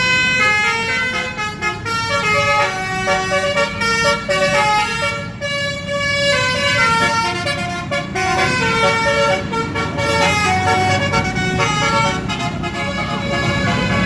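Basuri multi-tone telolet horn playing a quick melody of stepped, held notes, over a low engine rumble.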